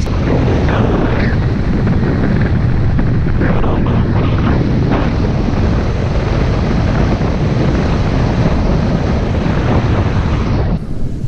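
Heavy wind buffeting an action camera's microphone at speed while riding a bicycle fast downhill on asphalt: a loud, steady rushing rumble.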